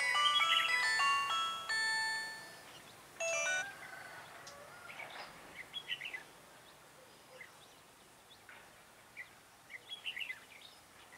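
A chiming electronic tune with steady note chords plays through the first two and a half seconds and returns briefly about a second later. After that, red-whiskered bulbuls give scattered short chirps.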